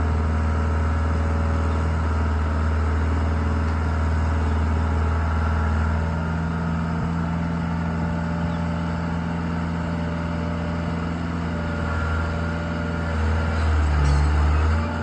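Skid steer engine running steadily, its note shifting about six seconds in and again near the end as the machine works.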